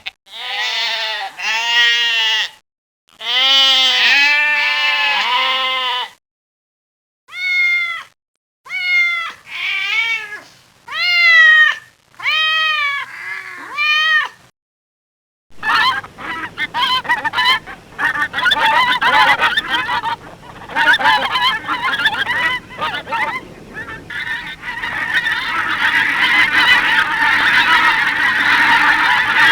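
A run of farm-animal sound effects: two long, wavering bleats, then about seven single honking calls with short gaps between, then from about halfway a flock of geese honking together continuously.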